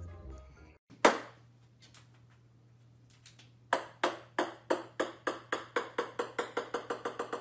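Small ball bouncing on a wooden floor. There is one sharp tap about a second in and a few faint taps. Then, from about halfway, a run of ringing bounces comes ever faster and softer as the ball settles.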